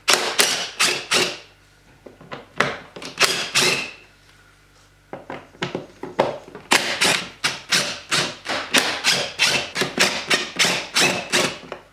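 Cordless power driver undoing the airbox cover's T30 Torx bolts through a long extension, knocking rapidly in three bursts. The longest burst starts about six and a half seconds in.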